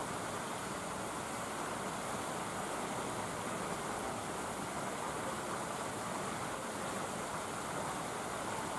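A steady, even rushing background noise with nothing standing out.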